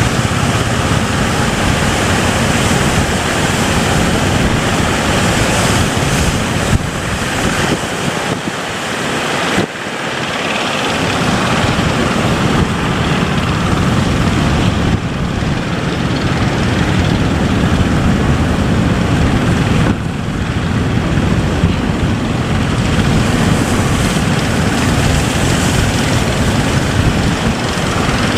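Boat engine running steadily under heavy wind buffeting on the microphone, with the rush of waves and water against the hull.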